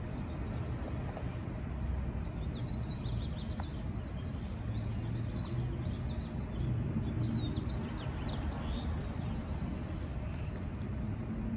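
Small birds chirping in quick, irregular bursts over a steady low outdoor rumble.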